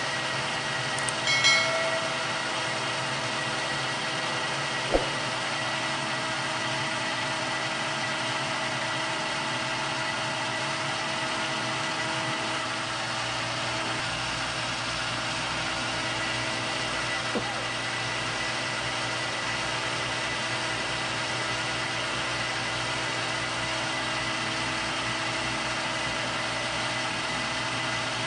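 Metal lathe running while a carbide turning tool takes a cut along a steel bar, which the machinist takes for free-machining or leaded steel: a steady machine hum with a few fixed tones. A short ringing chime sounds about a second in.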